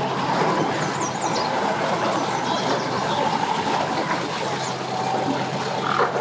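A 115 hp outboard motor on a pontoon boat running in gear under throttle, a steady engine drone with prop wash churning the water.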